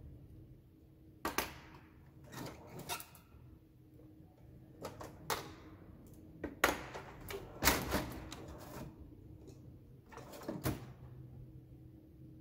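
Sharp metallic clicks and clatter of hand tools, pliers and a pick, working a cotter pin through the castellated nut on an aircraft alternator's drive shaft, about eight loud clicks scattered unevenly. Midway a steel tool-chest drawer is opened and shut. A low steady hum runs underneath.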